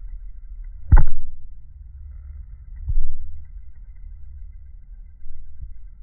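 Low rumble with three dull thumps, the first about a second in and the loudest: handling noise and low rumble on a handheld smartphone's microphone. The kingfisher makes no call.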